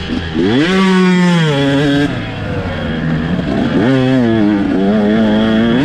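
KTM dirt bike engine under hard throttle on a dirt track. It revs up sharply about half a second in, eases off about two seconds in, and revs up again near four seconds.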